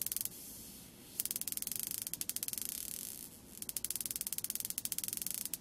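Crackle of tiny static sparks jumping from a high-voltage charged metal tip to an LED's wire lead, fed by a negative ion generator. A fast train of sharp ticks comes in runs, with brief pauses about a second in and around three and a half seconds.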